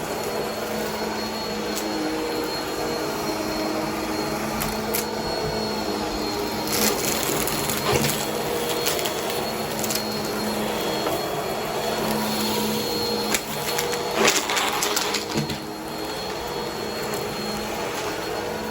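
Vacuum cleaner running with a steady motor hum as it goes over carpet, sucking up crunchy debris with bursts of crackling. The loudest crackling comes about three-quarters of the way through.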